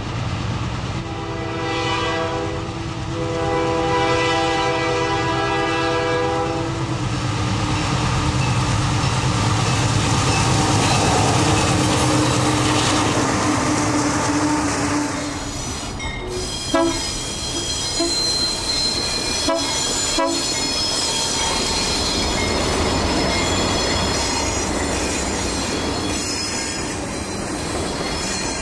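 Alco diesel locomotives sound a multi-chime air horn in a few long blasts, then work past with their diesel engines running and the wheels rolling on the rails. Sharp metallic knocks and clanks follow about two-thirds of the way in, and after them a high steady whine over the rumble.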